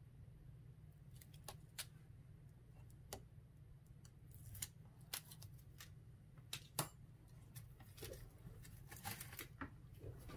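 Faint, scattered clicks and taps from a paper shaker card being handled with tweezers and fingers on a craft mat, busiest in the second half, over a steady low hum.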